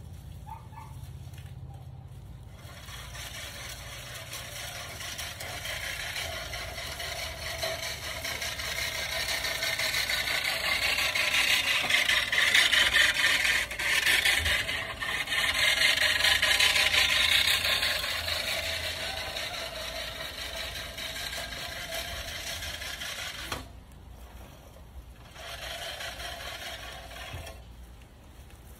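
Manual push reel mower cutting grass: the spinning reel blades make a continuous whirring rattle. It swells to its loudest in the middle as the mower comes close, fades again, and breaks off for about two seconds before resuming.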